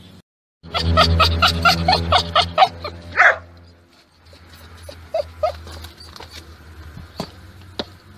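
A small dog yapping rapidly, about five high-pitched barks a second for a couple of seconds, ending in a longer, higher yelp. Later come two quieter yips and a couple of sharp ticks.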